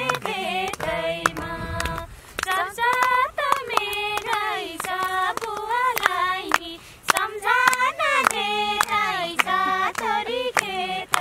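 Women's voices singing a Nepali dohori folk song, with a girl's voice among them, and hands clapping along in a steady beat.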